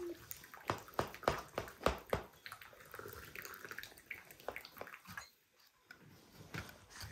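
Knife cutting through a crisp, crumbly-topped baked pie on a plate: a run of sharp clicks and crunches over the first two seconds or so, then a few quieter ones.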